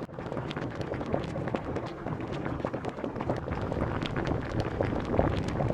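Café ambience: a steady low din with frequent small clinks and clatters, like cups and dishes being handled.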